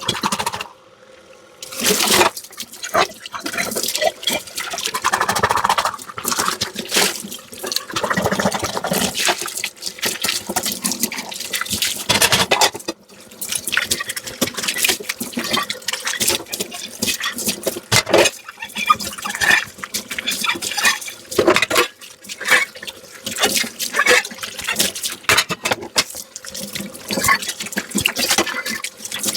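Dishes being washed by hand in a kitchen sink: running tap water and splashing, with frequent clinks and knocks of dishes and utensils. A short pause in the sound about a second in.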